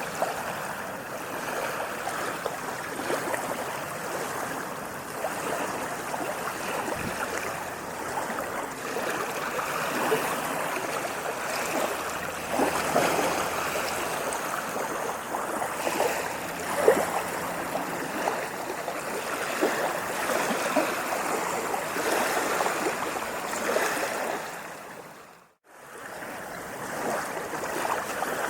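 Sea waves washing and splashing in a continuous rush of water with small splashes throughout. Near the end the sound briefly fades out almost to silence and comes straight back in.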